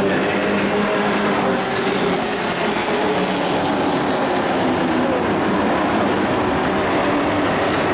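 Engines of several dirt-track race trucks running at speed around the oval, blending into a steady drone whose pitch drifts a little up and down.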